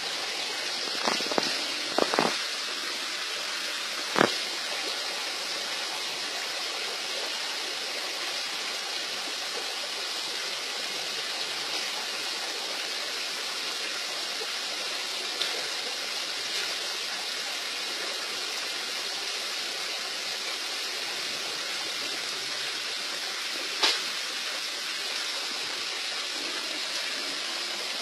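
Steady rush of flowing water, as from a stream or water running into a pond. Several brief sharp taps stand out in the first few seconds, and one more near the end.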